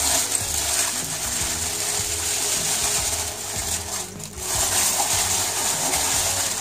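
Plastic bag rustling and crinkling as a marinated leg of lamb is worked out of it by hand, with quiet background music underneath.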